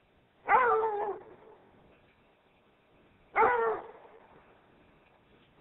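Rhodesian Ridgeback barking twice, about three seconds apart, each a single drawn-out bark. It is alarm barking at a strange white-clad figure standing among the trees.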